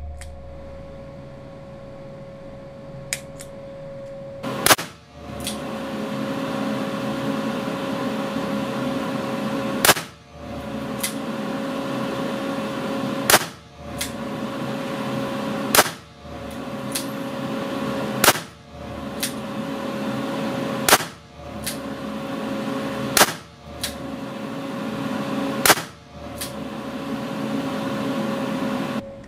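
Weihrauch HW5 T .22 rimfire revolver fired eight times in slow, deliberate fire, one shot every two to three seconds after the first. A steady background hiss with a faint hum fills the gaps and drops away for a moment after each shot.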